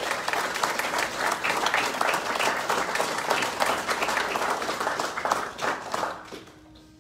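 Audience applauding, many hands clapping together, dying away about six seconds in.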